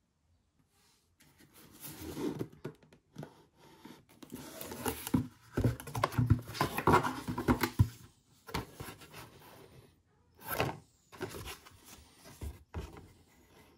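Food packaging being handled and opened: irregular crinkling and tearing with a few sharp knocks, coming in bursts with short pauses.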